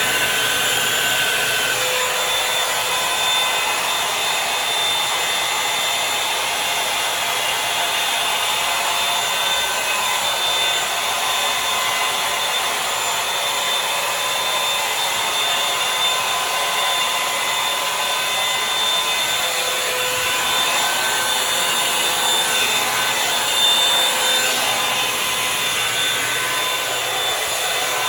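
Revlon One Step Volumizer hot-air brush dryer running steadily as it is worked through hair: a rush of air with a motor whine, the tone shifting slightly now and then.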